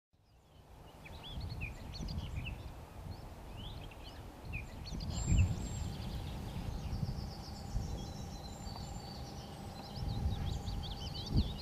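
Outdoor ambience of several small birds chirping and singing in short rising and falling notes, over a low fluctuating rumble, with a faint steady hum joining about halfway through.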